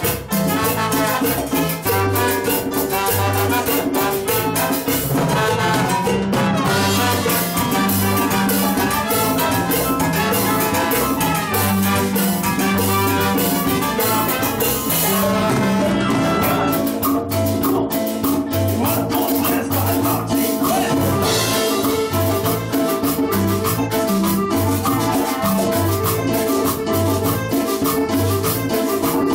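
A live cumbia band plays with saxophone, trombone, trumpets, congas and keyboard over a steady, evenly repeating bass beat.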